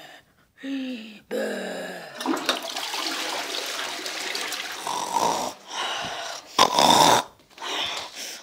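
A person wheezing and gasping for breath. Two short strained vocal sounds slide down in pitch, then comes a few seconds of raspy, hissing breathing, ending in several short harsh rasping bursts.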